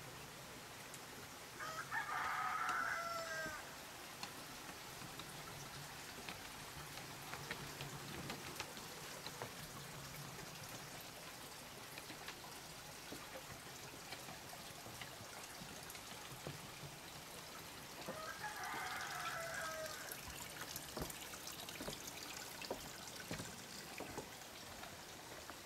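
A rooster crowing twice, once about two seconds in and again near the end, each a long call that falls away at the end. Between the crows there is faint dripping from the rain.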